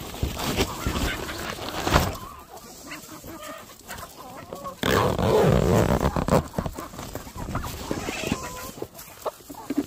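A flock of chickens clucking, with many short calls. A sharp knock comes about two seconds in, and a loud burst of noise runs for about a second and a half from about five seconds in.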